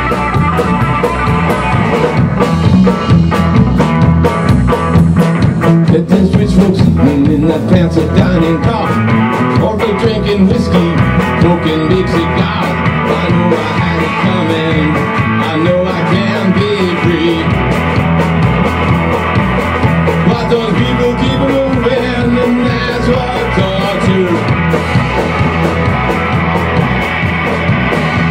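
A rock band playing live, loud and continuous: two electric guitars over a drum kit, in a rock-and-roll groove.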